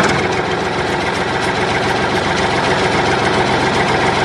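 An engine idling steadily with a fast, even chugging.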